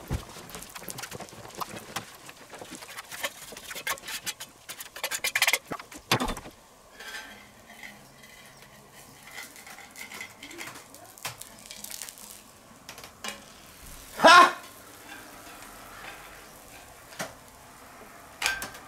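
Metal spatula scraping and clicking against a steel fire-plate griddle as pancakes are slid off and turned, in a dense run of short clicks for the first six seconds or so and scattered ones after. A brief loud sound about three-quarters of the way in stands out above the rest.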